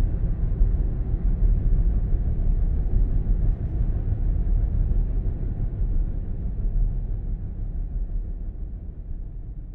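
Deep, noisy rumble closing out an ambient house track, with no clear melody or beat, fading slowly over the last few seconds.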